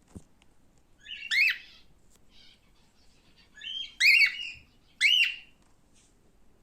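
Male cockatiel calling: a few short whistled chirps, each rising then falling in pitch, one about a second in and a louder quick cluster about four to five seconds in.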